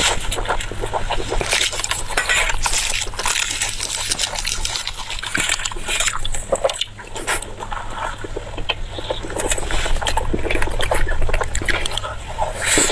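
Close-up wet chewing and lip-smacking of a person eating: a rapid, uneven string of moist clicks and squelches.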